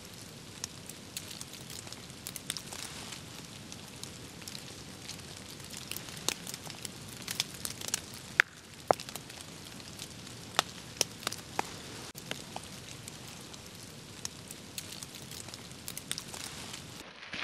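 Irregular sharp crackles and ticks scattered over a steady soft hiss, two of them louder about eight and nine seconds in.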